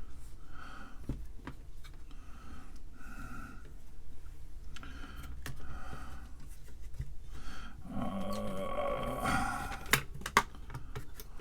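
Small clicks and taps of hands and tools handling an IC socket on a circuit board during soldering, with short faint tones recurring and a louder noisy stretch about eight seconds in.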